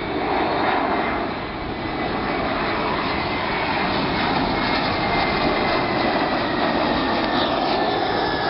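Twin-engine jet airliner on final approach with landing gear down, passing low overhead: a steady, loud jet engine roar with a high whine that slowly falls in pitch as it goes by.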